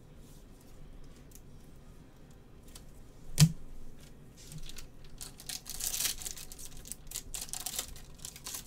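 A single sharp click about three and a half seconds in, then a few seconds of crinkling as a clear plastic card sleeve is handled by gloved hands.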